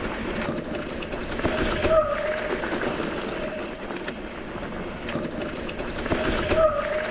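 Mountain bike descending a steep, loose volcanic ridge: tyres crunching and sliding over gravel and rock, with the bike rattling and wind on the helmet-camera microphone. A short squeal rises out of it about two seconds in and again near the end.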